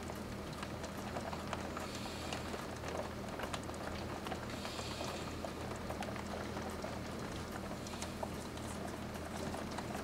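Rain falling steadily in a thunderstorm, with many close drops ticking and splashing on hard surfaces.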